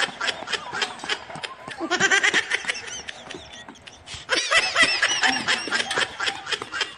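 High-pitched, rapid laughter in repeated bursts, loudest about two seconds in and again from about four and a half seconds in.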